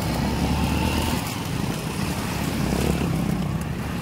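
Motorcycle engines running as the bikes ride through a shallow river, with water splashing around the wheels.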